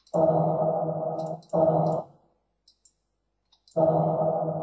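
A shouted 'go' vocal sample drenched in cathedral reverb, played back in pieces in a sample editor. It comes as three stretches of a held, droning vocal tone that each start and cut off abruptly, with short clicks in the gaps between them.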